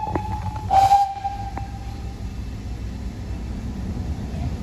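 Steam locomotive's whistle blowing a short, loud blast about a second in, with a tail of the note fading out, over the steady low rumble of the train running slowly and a few sharp knocks.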